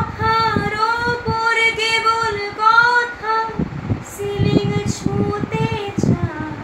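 A woman singing a Bengali song solo, holding long melodic notes, with a short breath pause about three and a half seconds in.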